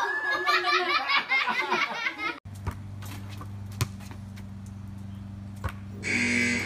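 Laughter in quick repeated bursts for about two seconds, cut off abruptly; then a steady low hum with a few scattered sharp knocks and a short noisy burst near the end.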